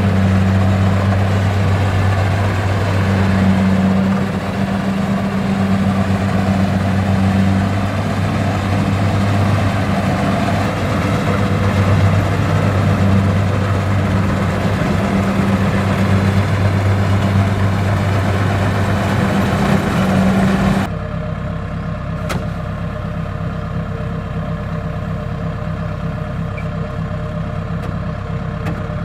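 Kubota DC-70 combine harvester's diesel engine running steadily with a low droning hum. About 21 seconds in, the sound switches abruptly to a slightly quieter, duller engine drone.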